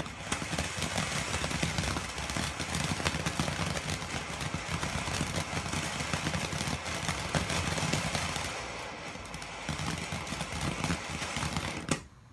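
TNT Fireworks Red Hot Fountain, a ground fountain firework, burning: a steady hiss of spraying sparks thick with fast crackling, which stops abruptly near the end.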